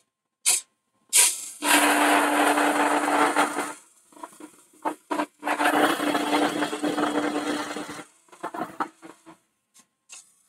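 Hollowing tool cutting inside a spinning holm oak hollow form on a wood lathe: a few short touches near the start, then two long cuts of about two seconds each, with a steady hum beneath them.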